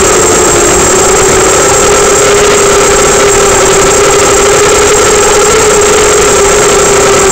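Brushless motors and propellers of a 250-size FPV racing quadcopter on a 3S battery, a loud steady whine that wavers slightly in pitch, heard through the onboard camera.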